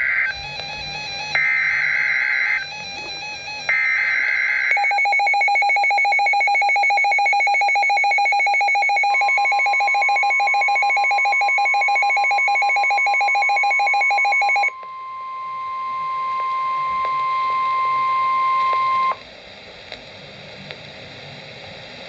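A S.A.M.E. weather alert radio receiving a NOAA Weather Radio severe thunderstorm warning. The screeching data bursts of the SAME header come three in a row, then a loud fast-pulsing alarm beep. About nine seconds in, the steady 1050 Hz warning alarm tone joins it, and that tone carries on alone after the beeping stops, cutting off about nineteen seconds in, followed by faint hiss.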